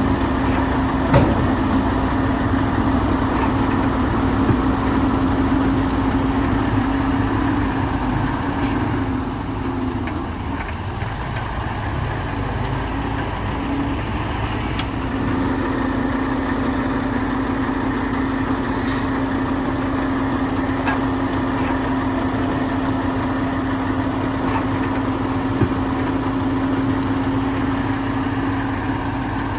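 Heavy diesel engine of earthmoving machinery running steadily. Its note drops back for a few seconds about ten seconds in, then comes up again.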